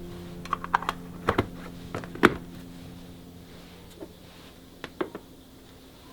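Light clicks and taps of hard storage containers being handled and set down, several in quick succession in the first couple of seconds and a few more near the end, over the last fading notes of background music.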